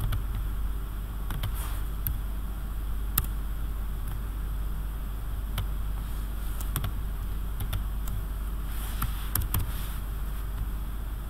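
Computer mouse clicking, scattered single clicks with the loudest about three seconds in, over a steady low electrical hum and hiss from the recording microphone.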